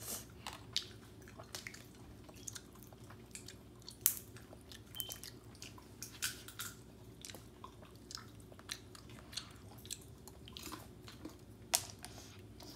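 A child chewing orange segments, with irregular wet smacking clicks from the mouth and a steady low hum underneath.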